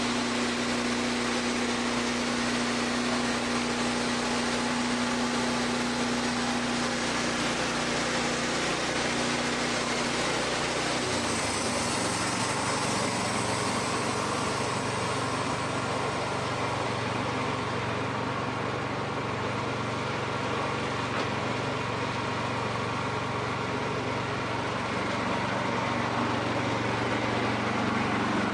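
Engine of a Woodmizer band sawmill running steadily. About eleven seconds in, its low note changes.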